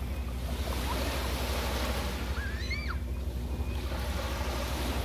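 Small waves breaking and washing up on a sandy beach, the wash swelling about a second in, over a steady low wind rumble on the microphone. A short high chirping call sounds near the middle.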